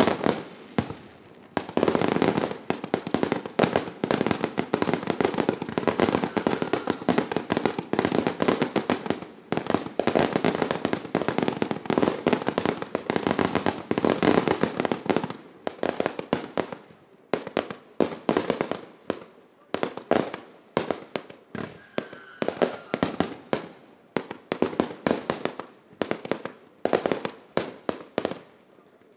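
Aerial fireworks going off in a dense, rapid barrage of bangs and crackling. After about halfway it thins out into more separate bangs, each trailing off.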